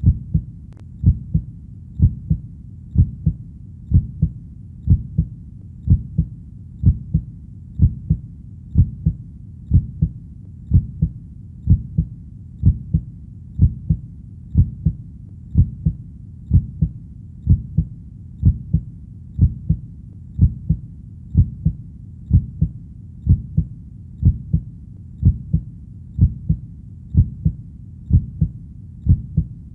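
Steady heartbeat: a low double beat, a stronger thud followed closely by a softer one, repeating evenly about once a second.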